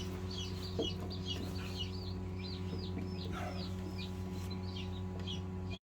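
Day-old chicks peeping: short, high, falling chirps several times a second, over a steady low electrical hum. The sound cuts off abruptly just before the end.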